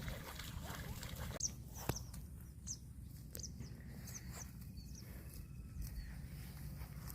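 Small birds chirping in short, high notes over a steady low rumble outdoors, with a sharp click a little under 2 seconds in.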